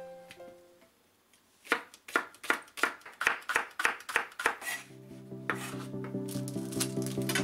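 A chef's knife slicing a green onion on a wooden cutting board: quick, even knock-and-slice strokes, about five a second, starting a couple of seconds in. Background music comes in over the chopping in the second half.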